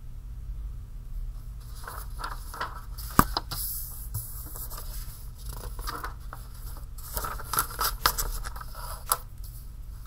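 Sheets of paper being slid and shuffled on a desk: rustling in two stretches, with a sharp tap about three seconds in that is the loudest moment and a couple of lighter taps near the end.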